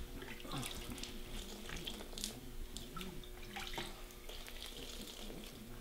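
Water running faintly into a plastic tub of dry papier-mâché mix, with a few light knocks of the tub being handled.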